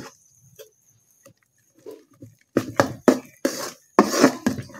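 Steel spoon stirring thick, fermented idli batter in an aluminium pot to mix in the salt: wet slaps and scrapes against the pot. After a quiet start there is a quick run of strokes, about three a second, from about halfway in.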